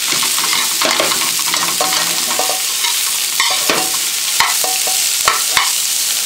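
Chicken pieces frying in oil in a metal wok, a steady sizzle, with a metal spatula scraping and knocking against the pan as it is stirred.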